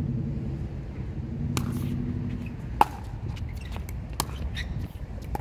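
A plastic pickleball being knocked back over the net: a few sharp knocks of ball on paddle and on the hard court, the loudest about halfway through. A low steady hum runs underneath and stops about halfway through.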